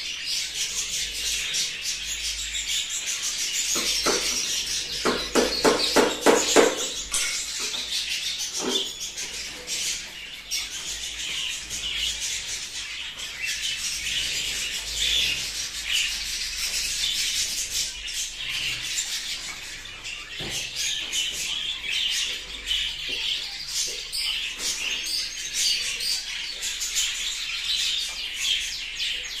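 A room of caged budgerigars chattering and chirping continuously. A quick run of sharp knocks about four to seven seconds in is the loudest moment.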